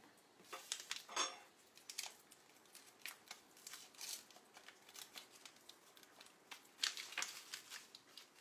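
Wrappers of fresh yeast cubes crinkling and tearing as they are unwrapped by hand, in short irregular rustles with a louder cluster about a second in and another near the end.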